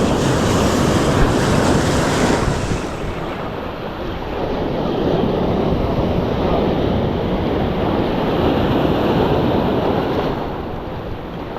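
Sea surf breaking and washing in at a river mouth, swelling in two surges and easing near the end, with wind buffeting the microphone.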